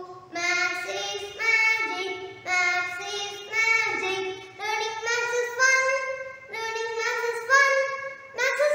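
A young boy singing a rhyme about maths unaccompanied, phrase after phrase with short breaths between them.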